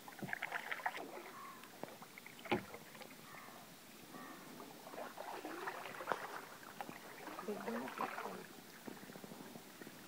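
Water splashing and lapping at the waterline of a moving canoe, close to the camera housing, in irregular bursts, with one sharp knock about two and a half seconds in.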